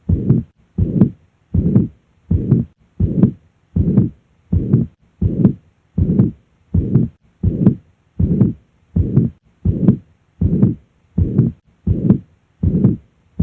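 Heart sounds at the cardiac apex with the murmur of mitral regurgitation filling each beat. The rhythm is steady, a little over one beat a second, and each beat ends in a sharp closing sound.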